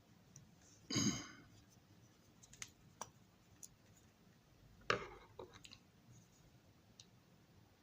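Small clicks and taps of a model railroad car's parts being handled on a workbench. There are two louder, slightly drawn-out knocks, about a second in and about five seconds in, and a few faint sharp clicks between them.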